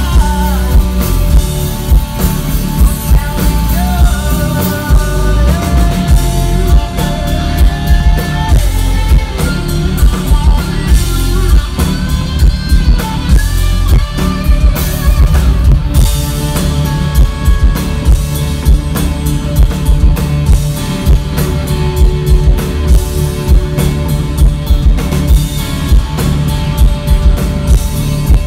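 Live rock band playing: electric guitars, bass guitar and drum kit, with a steady driving drum beat. Very heavy on the bass drum, recorded right by the PA subwoofers.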